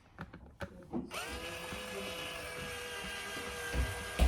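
Electric drill spinning up about a second in and running at a steady whine while drilling.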